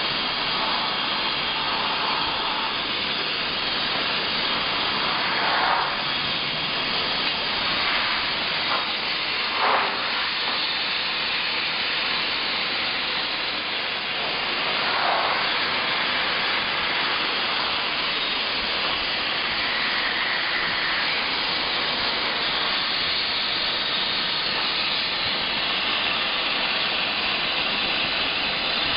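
Gas burner flames heating glass tubes on a glass-forming lathe, giving a steady rushing noise, with a few brief louder swells along the way.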